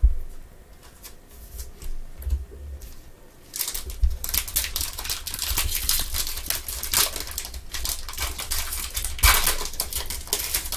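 A thump at the start and light card handling, then from about a third of the way in a foil trading-card pack wrapper crinkling and tearing as it is ripped open and crumpled, in quick irregular rustles.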